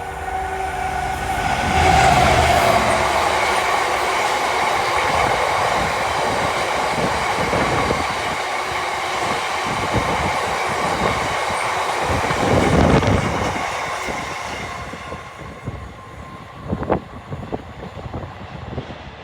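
Class 70 diesel freight locomotive passing, followed by its train of wagons rolling and clattering by on the rails; the noise builds over the first two seconds, holds for about twelve, then fades.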